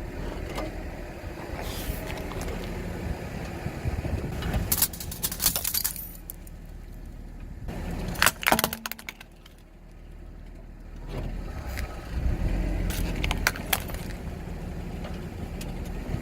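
A car rolling slowly with a low engine and tyre rumble, while objects crack and crunch under its tyres in three bursts of sharp crackling, about four and a half seconds in, at eight seconds and near thirteen seconds.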